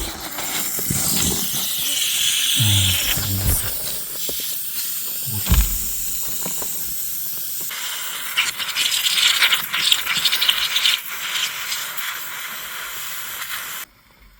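Water hissing as it escapes a leaking PB water pipe. The steady hiss turns crackly partway through and cuts off sharply near the end, with a few dull knocks in the first half.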